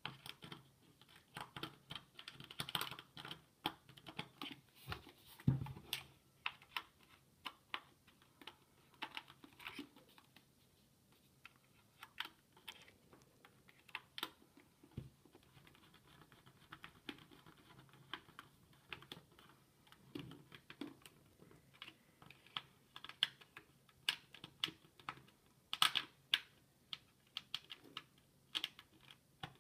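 Irregular small clicks and taps from hands handling a plastic diffuser base and driving small screws into it with a screwdriver, with an occasional louder knock of the housing.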